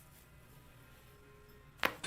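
A single sharp crack from a neck joint during a chiropractic neck adjustment, near the end, after low room tone.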